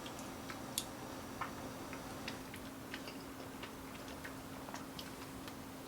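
A steady low hum with scattered light clicks and ticks, about one or two a second, a little louder near the start.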